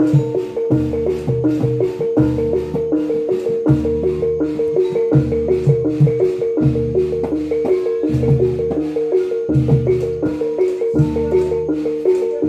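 Live Javanese gamelan playing a jatilan accompaniment: bronze pot gongs and metal-keyed instruments ring a repeating melodic figure in a steady pulse, over recurring low drum strokes.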